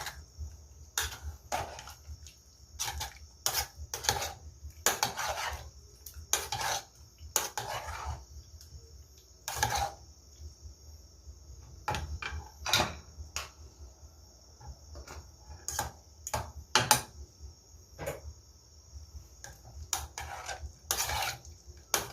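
A spoon scraping and knocking against a cooking pot as meat in water is stirred, in irregular strokes, with a steady high hiss underneath.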